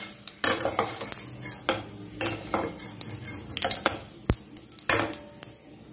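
Stainless-steel slotted spoon scraping and clinking against a steel kadai as fried cashews are scooped out of hot oil, in a series of irregular clicks and scrapes. The oil sizzles faintly underneath.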